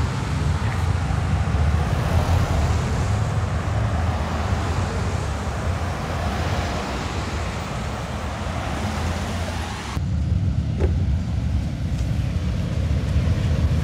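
Cars and SUVs driving slowly past close by, with engine and tyre noise over a heavy low rumble of wind on the microphone. The sound changes abruptly about ten seconds in.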